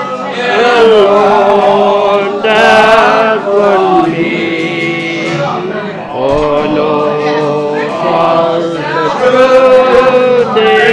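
A group of voices singing a song together, holding long notes in phrases of a few seconds with short breaks between them.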